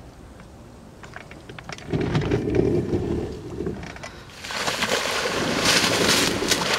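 A low rumble for a couple of seconds, then loud splashing and thrashing in shallow water among reeds from about four seconds in.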